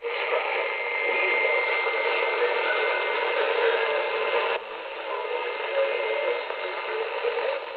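Icom IC-718 receiver tuned to an AM shortwave broadcast at 5985 kHz, giving out loud, hissy band noise with a thin steady whistle. About halfway through the noise drops, as the receiver's attenuator is switched in. This is the noisy reception the owner finds typical of the set.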